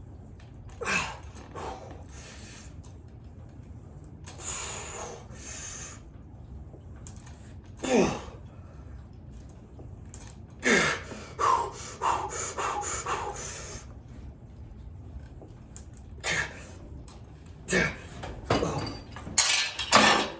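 A man breathing hard with sharp exhales and gasps, several of them falling in pitch, coming in separate bursts.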